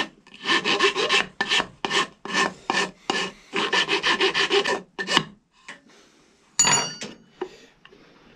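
A 4-in-1 hand rasp scraping the end of a hickory ramrod blank in a quick run of back-and-forth strokes, about two a second, rasping wood off to fit the ramrod's tip. The strokes stop about five seconds in, followed by a sharp metallic clink as the rasp is set down.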